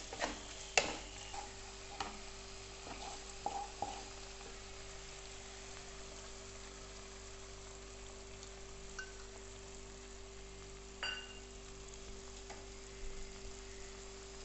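Chopped vegetables sizzling in oil in a wok, with a spatula scraping and knocking against the pan during the first few seconds of stirring. After that, a steady sizzle as beaten egg cooks in the middle of the pan.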